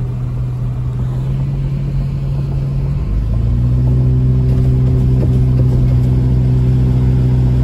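Car driving on a wet road, heard from inside the cabin: a steady engine drone with tyre noise. About three seconds in, the drone deepens and gets a little louder.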